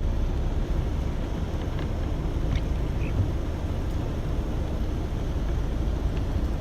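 Steady low rumble of wind buffeting the microphone, with a few faint high chirps near the middle.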